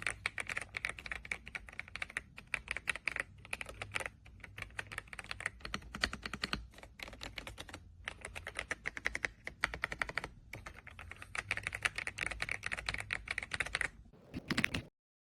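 Fast typing on an RK Royal Kludge R75 gasket-mounted mechanical keyboard: a dense run of key clicks broken by short pauses every few seconds, ending in a brief heavier burst.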